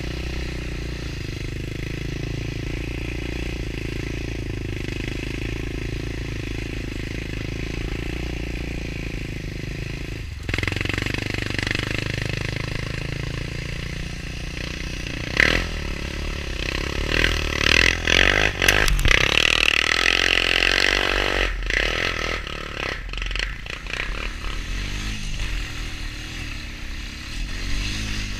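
ATV engine running steadily while riding along a snowy trail. It gets louder about ten seconds in, with a rougher, noisier stretch in the middle.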